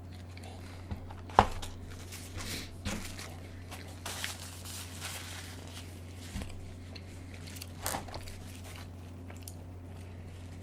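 Close-miked eating sounds: scattered chewing and biting clicks with light crinkling, sharpest about a second and a half in and again around eight seconds, over a low steady hum.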